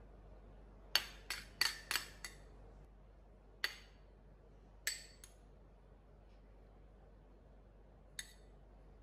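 Metal spoon clinking against a small ceramic bowl while spooning out strawberry purée: a quick run of five or six ringing clinks about a second in, then single clinks a second or more apart, the last near the end.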